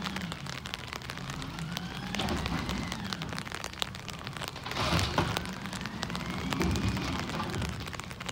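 Side-loading garbage truck with its engine speeding up as the hydraulic arm cycles, with a rising whine at the start and again after the middle. There is a clatter about five seconds in as a cart is tipped and banged. Light rain patters throughout.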